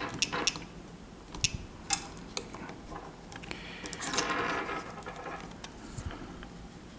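Light clicks and taps of small plastic and metal parts being handled: the opened Palm M515 PDA, its circuit board and the battery's wire lead. A stretch of rustling and scraping comes about four seconds in.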